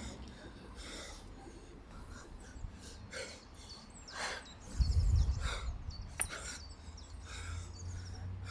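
A man breathing hard between efforts, in a series of short, forceful exhales. A low rumble comes about halfway through, and a sharp click follows shortly after.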